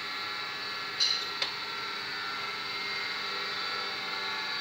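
Valve spring seat washers being picked out of an aluminium cylinder head by hand: a short scrape about a second in, then a single small metallic click, over a steady workshop hum.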